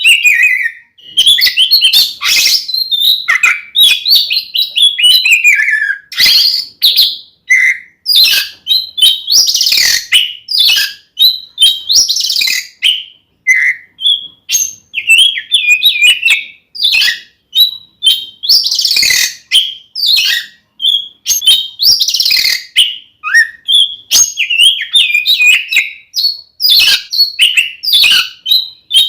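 Oriental magpie-robin (kacer) singing loudly and without let-up in fighting mode: a rapid run of varied whistled phrases mixed with harsh, scratchy notes, broken only by brief pauses. This is the aggressive territorial song used to provoke other magpie-robins.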